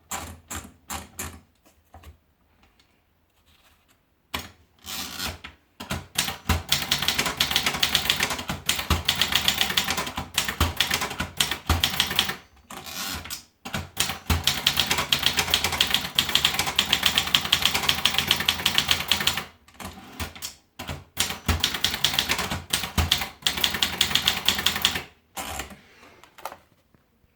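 Brother De Luxe typewriter being typed on: a few scattered keystrokes at first, then fast runs of key strikes lasting several seconds each, broken by short pauses.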